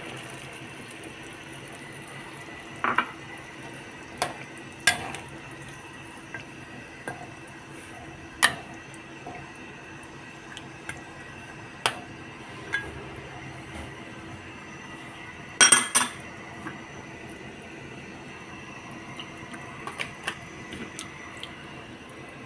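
Metal spatula clinking and scraping against a wok while curry is stirred: short sharp clanks every second or few, the loudest a double clatter about sixteen seconds in, over a steady low hum.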